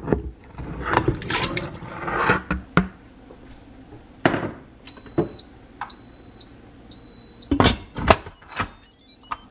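Pork intestines slid off a plastic cutting board into water in an Instant Pot's steel inner pot, then a knock. Then three steady high electronic beeps from the Instant Pot Duo Plus control panel, followed by two loud clunks of the lid going on.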